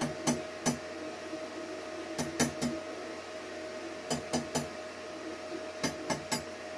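Irregular sharp metallic taps, in clusters of two or three with pauses between, over a steady mid-pitched electrical hum from a stick welding setup.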